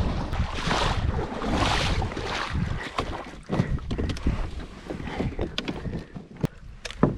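Kayak being paddled across the water, paddle strokes swishing, with a few sharp knocks and wind on the microphone.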